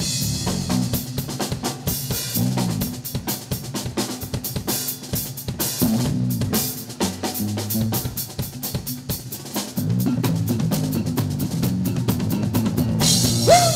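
Live drum kit played in a busy, fast pattern of kick, snare and rimshot hits, over the band's low bass notes.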